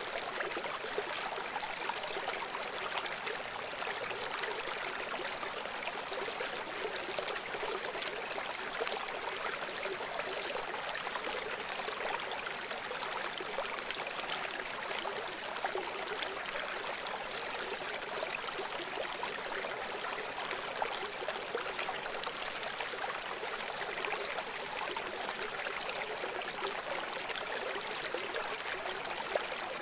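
Running water rushing steadily, an even unbroken wash with no deep rumble.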